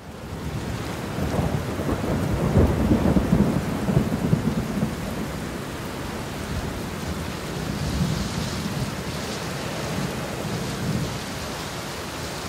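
Thunderstorm sound effect: a low roll of thunder swells from about a second in and dies down by about five seconds, over steady rain.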